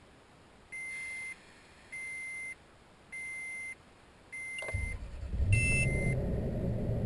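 Toyota Tundra pickup's dashboard chime beeping four times, evenly spaced about a second apart. Then the engine cranks and starts about two-thirds of the way in and settles into a steady idle, with one higher chime just after it catches.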